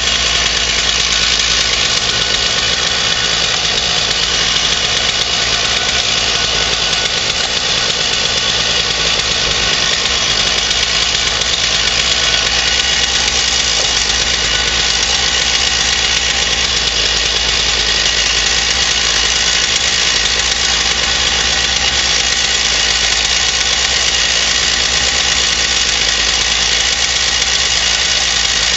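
Stihl MS461 chainsaw's two-stroke engine running at a steady speed, fitted with a swapped-in MS360 ignition coil for a timing check.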